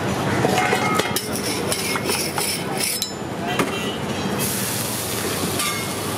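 A steel spoon and lids clinking and knocking against stainless steel chutney containers, several sharp knocks with a short ring, over a steady din of street noise.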